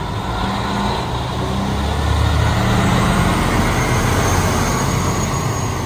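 Fire engines' engines running as the trucks pull out of the station, with a steady low rumble that grows louder as one passes close, about halfway through.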